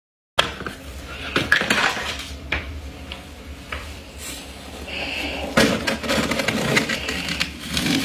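Fingers pressing and sifting through thick, fluffy humidifier-grown freezer frost, making irregular crunches and crackles, with a few sharper snaps.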